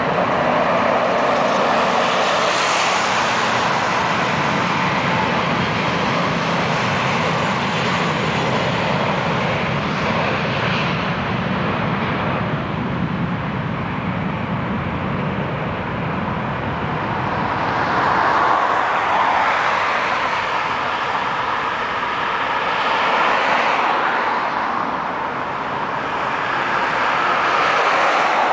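Steady road and engine noise from inside a moving vehicle, swelling a few times in the second half.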